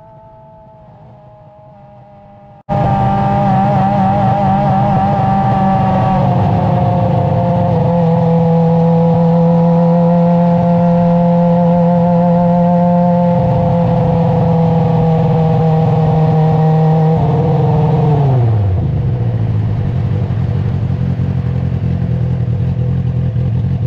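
Onboard sound of an F1000 formula car's 1000 cc motorcycle-derived engine running at steady revs as the car rolls slowly toward the pits; it comes in suddenly loud about three seconds in. About eighteen seconds in the revs drop away and it settles to a low idle.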